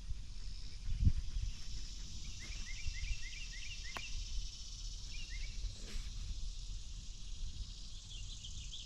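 Outdoor rural ambience: a steady high insect drone, with a bird singing quick runs of short chirps a couple of seconds in and again near the end. Low wind rumble on the microphone, with a thump about a second in and a sharp click around the middle.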